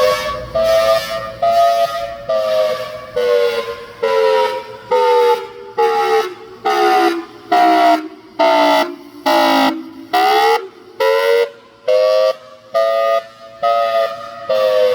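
Federal Signal Thunderbolt 1003 outdoor warning siren sounding its pulsed wail. Its two-note chord is chopped into about three pulses every two seconds; the pitch sinks slowly, then rises again about ten seconds in.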